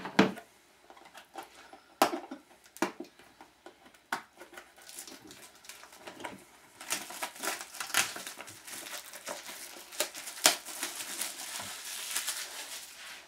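Wrapping crinkling and cardboard being handled as a box of hockey card packs is torn into and opened by hand: a few sharp clicks and rips at first, then steady crinkling from about five seconds in.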